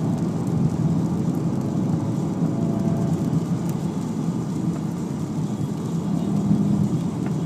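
Volkswagen Golf GTI running steadily: an even engine drone and tyre-and-road rumble heard from inside the cabin.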